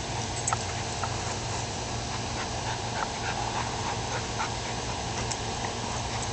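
A golden retriever and a corgi play-fighting over a toy: quiet dog sounds and scuffling with scattered small ticks, over a steady hiss.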